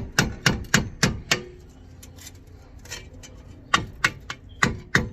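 Rapid hammer taps on a loosened front wheel hub bearing, about three to four blows a second, driving it out of the steering knuckle. The tapping stops briefly after about a second and a half, then starts again near the end.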